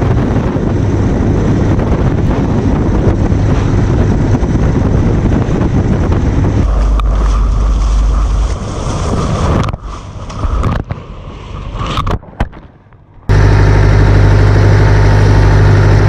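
A small fishing boat's engine running steadily under way, with the rush of wind and water past the hull. In the middle the engine fades behind uneven gusty noise with brief dropouts. About thirteen seconds in the loud, steady engine sound returns abruptly.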